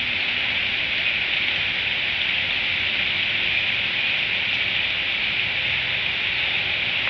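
Steady rain falling, an even hiss with no separate drops or other events standing out.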